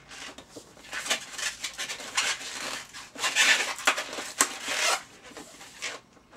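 Inflated latex twisting balloons being handled, rubbing and rustling against hands and clothing in irregular scrapes, the longest and loudest about three seconds in.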